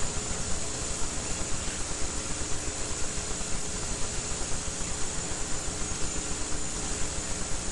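Steady hiss with a faint low hum: the background noise of an old videotape recording, with no speech.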